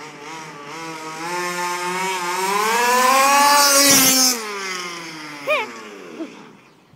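HPI Baja 5B RC buggy's two-stroke petrol engine with a tuned pipe, running at high revs as it speeds past. The note climbs and grows louder, drops in pitch as the buggy goes by about four seconds in, then fades away, with two quick throttle blips near the end.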